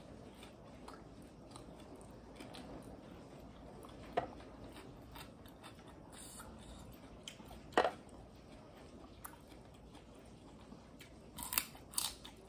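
Close-miked eating sounds: quiet chewing and small mouth clicks, broken by a few sharp crunches. The loudest crunch comes about two-thirds of the way through, and two more come near the end as a raw red radish is bitten.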